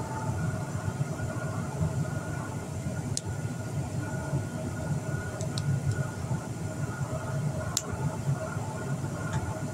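Steady low mechanical hum with a few faint steady tones over it, from an unseen source. A few sharp clicks, about 3, 5.5, 8 and 9 seconds in, come from small plastic toy pieces being handled and snapped together.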